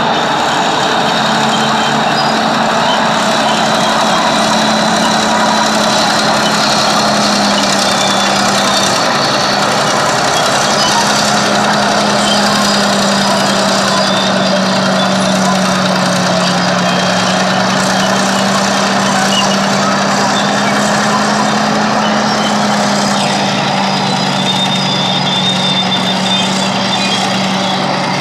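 Diesel engine of a vintage Caterpillar D9 crawler tractor labouring under load as it tows a wheeled scraper: a loud, steady engine drone whose pitch sags a little and recovers.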